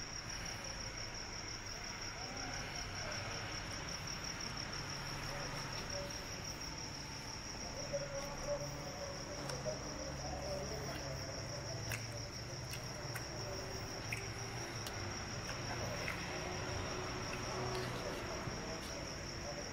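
A steady high-pitched insect trill, with a faint low hum under it and a few light clicks.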